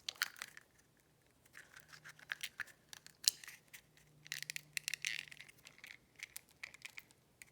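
Fingernails scratching and picking at the crust of a small toy egg, cracking and peeling its shell in many short scratches and clicks.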